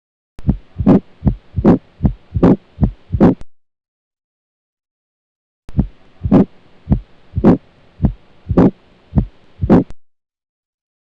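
Recorded heart sounds of a small animal, as heard through a stethoscope: paired lub-dub beats with a steady hiss between them. There are two separate clips of about four beats each, the first cut off after about three seconds and the second starting about five and a half seconds in.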